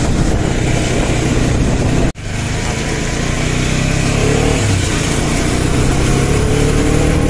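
Motorcycle engine running as the bike is ridden along the road. It cuts out for a moment about two seconds in, and from about four seconds the engine note slowly rises as the bike picks up speed.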